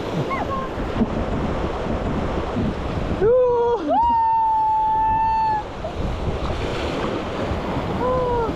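River water rushing around the raft and wind on the microphone, with rafters yelling: a short shout about three seconds in, a long held high whoop right after, and another call near the end.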